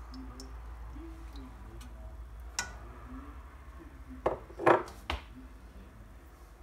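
Glass bowl, used as a lid, being lifted off a nonstick pan and set down: a few clinks and knocks, the loudest about four and a half seconds in, over a steady low hum.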